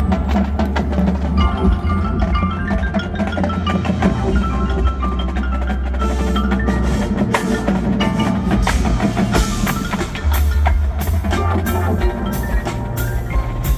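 Marching band field show music: mallet percussion (marimbas and bell-like keyboards) playing quick running note patterns over a deep sustained bass. Sharp percussion hits come in during the last few seconds.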